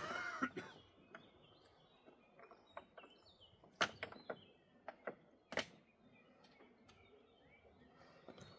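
Scattered sharp knocks and clacks of stone on stone as blocks are fitted by hand into a dry stone wall, with the loudest knocks about four and five and a half seconds in. Birds chirp faintly throughout.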